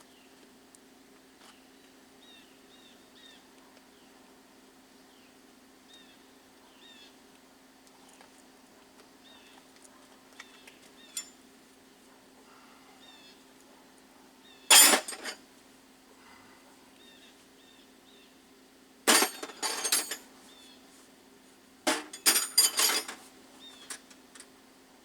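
Metal tools or parts clinking and clattering in a few short bursts, the first about two-thirds of the way in, then a cluster near the end, over a faint steady hum.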